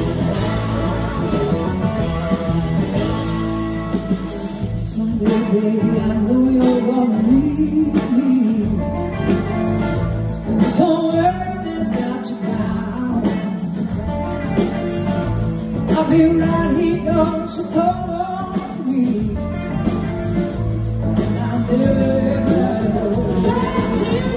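Live blues-rock band playing: an electric guitar lead line that bends and glides in pitch over two drum kits and the rest of the band.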